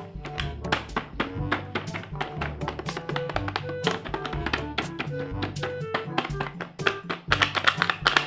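Upbeat background music with a fast, steady beat and a bass line.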